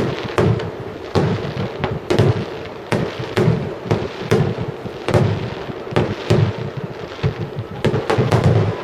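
Aerial firework shells bursting one after another, sharp booms about every half second to a second with a continuous rumble between them.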